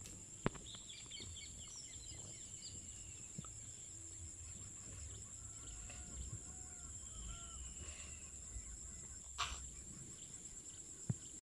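Wild birds calling in jungle scrub: a quick run of high chirps about a second in, then a series of short arched, fowl-like calls later on, over a steady high-pitched drone. A single sharp snap comes near the end.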